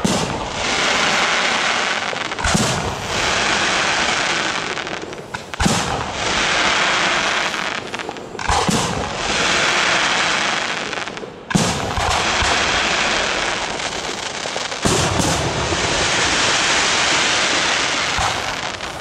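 Fireworks display: aerial shells bursting with a sharp bang about every three seconds, six in all. Each bang is followed by a couple of seconds of rushing, crackling hiss as the bursts burn out.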